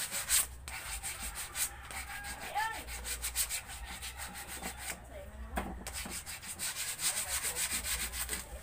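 Sandpaper rubbed by hand along a carved wooden piece in quick back-and-forth strokes, a dry scratchy hiss, pausing briefly about five seconds in.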